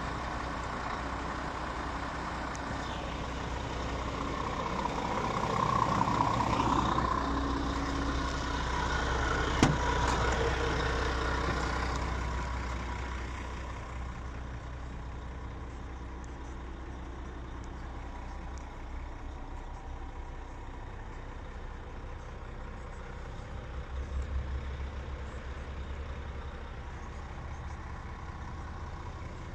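Scania R450 Euro 6 truck's 13-litre inline-six diesel idling steadily. It is heard first from outside beside the cab, then quieter and muffled from inside the cab after a sharp click about ten seconds in.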